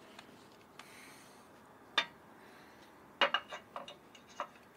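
Light metallic clicks and clinks as the vacuum canister relocation bracket and its parts are handled by hand: one sharp click about two seconds in, then a quick run of clicks in the last second and a half.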